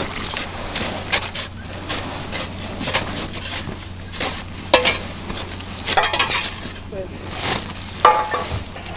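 Shovels digging and scraping into loose dirt, a run of irregular gritty scrapes and scoops.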